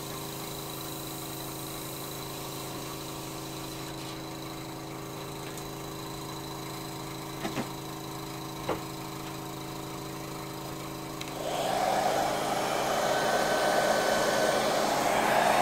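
A steady low hum with a couple of light clicks, then about eleven seconds in a handheld hot air gun switches on and blows with a loud, even rush that keeps going, drying a thin first coat of spray paint.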